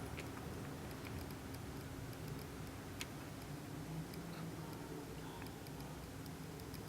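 A faint, unexplained low hum over steady background hiss at night, with a few scattered soft ticks.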